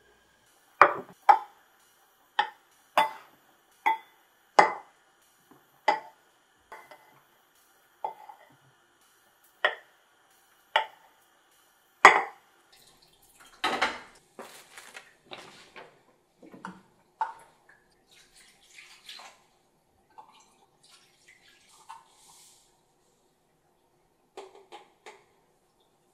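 A metal utensil clanking against a stainless-steel cooking pot about a dozen times at irregular intervals, each strike ringing briefly. This is typical of knocking a skimmer on the pot while skimming scum off boiling beef short ribs. About halfway through comes a longer stretch of pot clatter and water, followed by softer scattered clinks.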